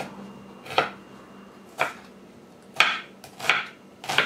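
Chef's knife cutting through an onion and striking a wooden cutting board: about five separate strikes, roughly one a second.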